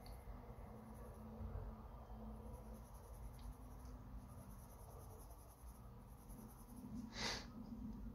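Faint scratching of a mechanical pencil's graphite shading on sketchbook paper, with a brief louder swish about seven seconds in.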